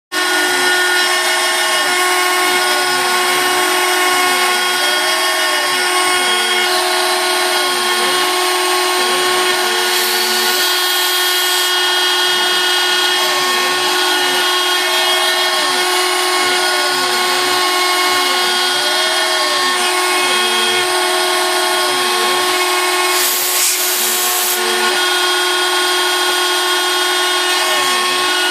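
The spindle of a 3Drag 3D printer converted into a light CNC runs with a steady high whine as its bit engraves the copper of a printed circuit board. Under it, the stepper motors' pitch rises and falls in short repeated arcs as the head moves along the traces.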